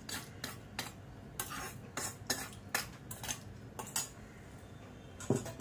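Metal tempering ladle and dishes clinking: a string of short, sharp taps about every half second as the seasoning is tipped onto the curd rice.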